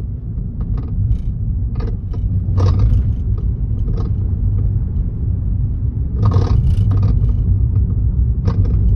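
Steady low rumble of a 30-series Toyota Prius on the move, with irregular sharp clicks and knocks: the abnormal noise, first suspected to come from the rack-and-pinion steering gearbox, that turned out to come from the steering column.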